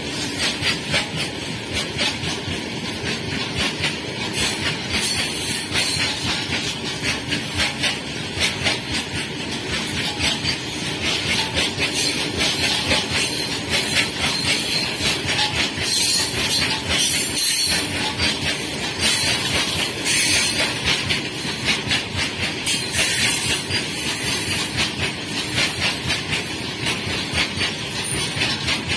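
Indian Railways freight train of open-top steel wagons rolling past close by: a steady rush of wheel and rail noise with a dense run of rapid clicks from the wheels.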